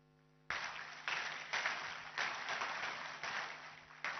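Audience applauding, breaking in suddenly about half a second in and rising and falling in waves.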